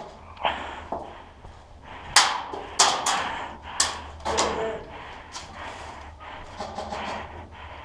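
Airsoft guns firing: a handful of sharp pops at irregular intervals, with smaller ones between.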